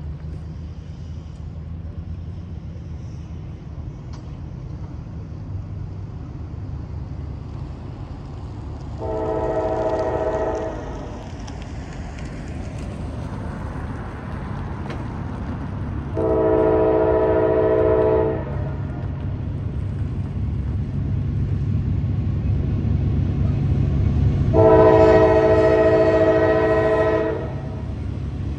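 Air horn of a CSX GE AC4400CW locomotive leading a coal train, sounding three long chords of several tones about seven seconds apart, with a short blast starting at the very end: a warning as the train approaches a road crossing. Beneath it the locomotives' low diesel drone grows louder as the train nears.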